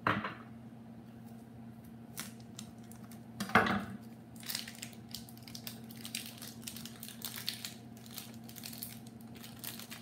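Plastic cheese packaging being cut and torn open by hand, crinkling in quick bursts for the second half. Two knocks on the wooden cutting board come before it, the louder about three and a half seconds in.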